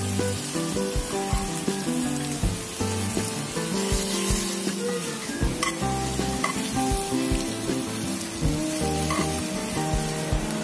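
Marinated chicken tocino pieces sizzling steadily in oil and glaze in a cast-iron skillet, with a few clicks of tongs as the pieces are turned about halfway through.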